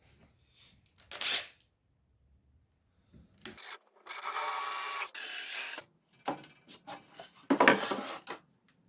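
Workshop assembly noises: a short scrape about a second in, a steady rasping tool sound lasting nearly two seconds in the middle, and another scrape near the end.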